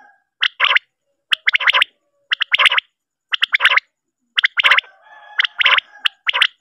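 Recorded common quail calls: a short phrase of quick, sharp notes repeated about once a second. It is a playback lure for drawing quail into nets at night.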